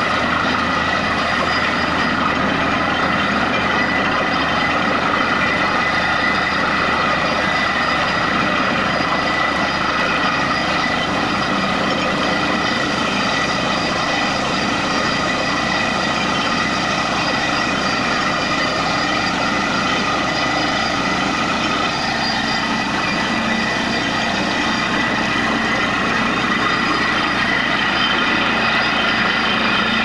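Borewell drilling rig running steadily, its engine drone mixed with the rush of water and slurry being blown up out of the bore casing. The water gushing from the hole is the sign that the bore has struck water.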